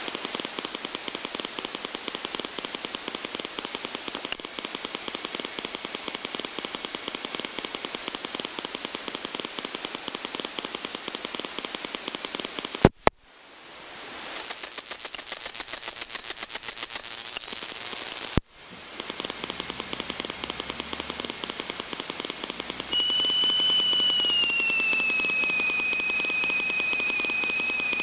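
Aerobatic plane's piston engine running after start-up, heard in the cockpit as a steady noisy rattle of rapid, even pulses. The sound cuts out sharply twice, about halfway through and again about two-thirds in. Near the end a high whine comes in, slides slightly down and then holds.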